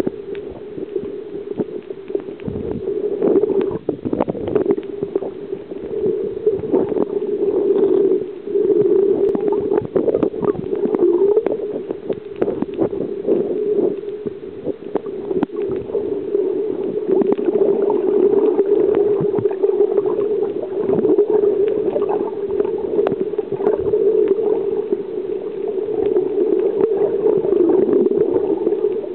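Underwater ambience picked up by a submerged camera: a steady muffled hum with scattered clicks and gurgles.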